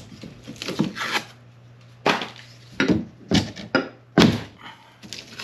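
Drywall being knocked and pried off a wall: about eight irregular knocks and thuds, the loudest about four seconds in.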